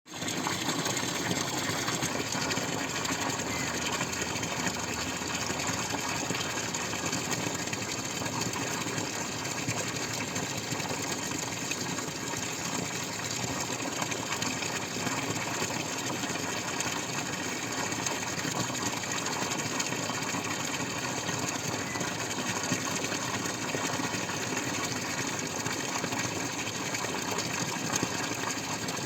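Water dripping and splashing in a dense, continuous patter of many small drops, steady throughout.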